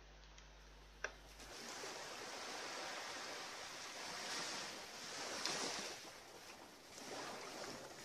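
Small waves lapping and washing onto the shore: a soft, faint hiss that swells and fades several times, beginning about a second and a half in after a single short click.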